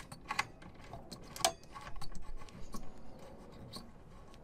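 Scattered light clicks and scraping from a screwdriver and a cable being worked into the screw terminals of a DC-to-DC battery charger, mostly in the first three seconds, then quieter.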